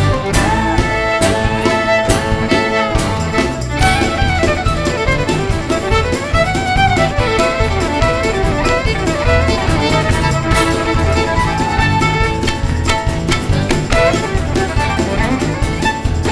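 Background music led by a fiddle, with sliding bowed notes over a steady low rhythmic bass.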